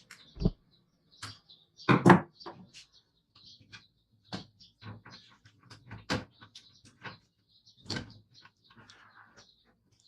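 Scattered knocks and clicks of hard objects being handled, at irregular times, the loudest about two seconds in.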